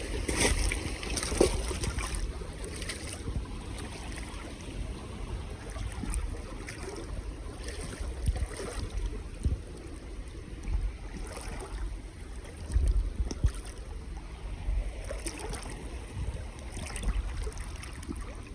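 Wind rumbling on the microphone, with scattered knocks and scrapes from moving about on a rocky creek bed and handling the camera.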